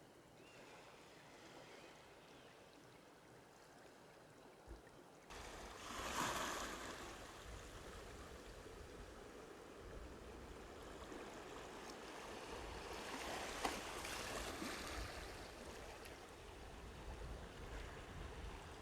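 Sea waves washing against the harbour shore in slow surges, loudest about six seconds in and again around fourteen seconds. A steady low rumble joins about five seconds in.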